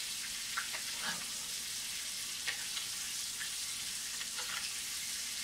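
Bone-in ribeye searing in a skillet of hot oil, butter and garlic: a steady sizzle with scattered small pops and crackles of spattering fat.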